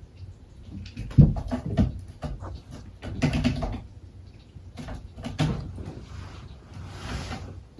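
A cat dashing about in a burst of zoomies: irregular thumps and scrabbling, the loudest about a second in, with further flurries of scuffing.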